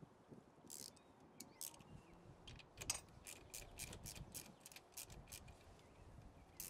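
Ratchet wrench with a 10 mm socket clicking as it is worked back and forth to loosen a car battery terminal nut: a string of light, sharp ticks, about three to four a second through the middle.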